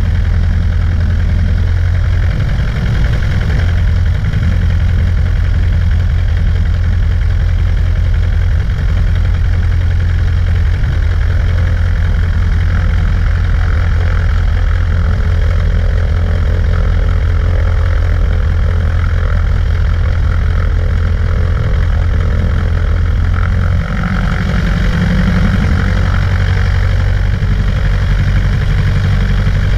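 Cessna 140A's engine and propeller running steadily, a loud, constant low drone; the note shifts slightly about 24 seconds in.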